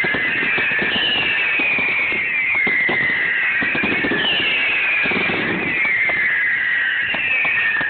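Fireworks display: repeated whistles falling in pitch, overlapping one another, over a dense crackle of small pops.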